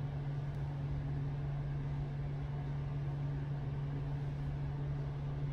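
Steady low hum with a faint hiss behind it, unchanging throughout; no distinct events.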